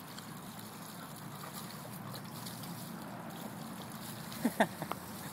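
Water running from a garden hose onto a pot-bellied pig as it is hosed down, a steady hiss. About four and a half seconds in, a few short grunts, quickly following one another.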